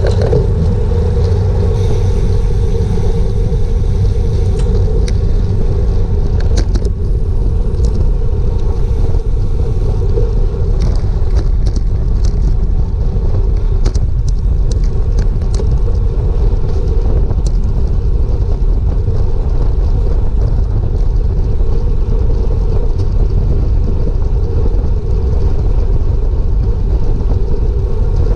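Wind rushing over a bicycle-mounted GoPro's microphone with tyre and road noise as a bike pack rolls off the start, steady and loud. Scattered sharp clicks come mostly in the first half.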